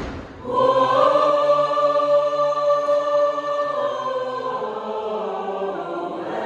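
Mixed choir singing. After a brief pause it enters about half a second in on a held, sustained chord, which eases off a little before the next phrase starts near the end.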